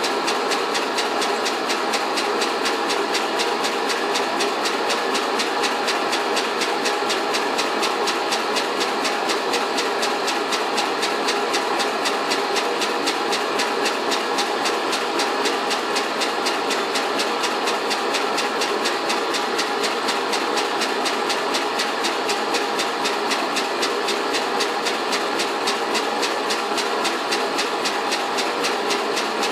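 Homemade steam engine running steadily on steam, with a fast, even beat of exhaust chuffs and a constant hiss of steam escaping from its leaking spool valve.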